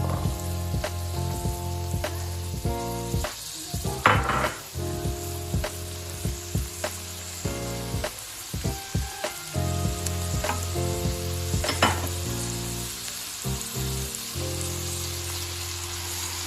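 Food sizzling as it fries in a hot pan and is stirred, with frequent clicks of the utensil against the pan. The sizzle surges loudly twice, about four seconds in and again near twelve seconds. A steady tune plays underneath.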